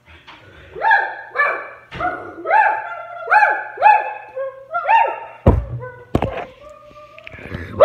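A run of short, high-pitched yelps, about two a second, each rising then falling in pitch, followed by two heavy thumps and a few softer calls.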